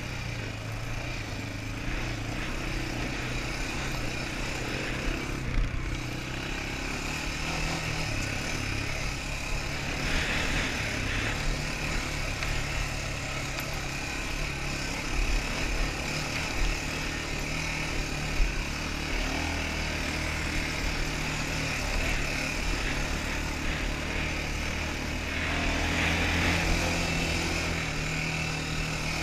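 Quad bike (ATV) engine running under varying throttle while riding, its pitch stepping up and down every few seconds, with a few sharp knocks from the machine going over bumps.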